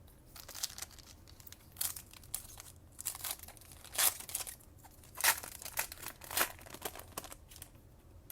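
A foil trading-card pack wrapper being torn open and crinkled in a series of short, sharp rustles.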